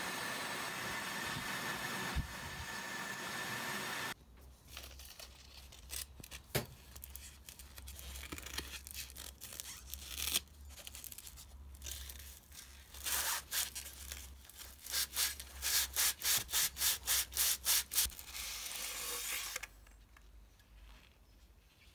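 Abrasive blaster hissing steadily as it blasts a bent wire part, cut off suddenly about four seconds in. Then sandpaper rubbing on the brass body of an antique gasoline blowtorch: scattered strokes, then a run of quick back-and-forth strokes, about three a second, before it goes quieter near the end.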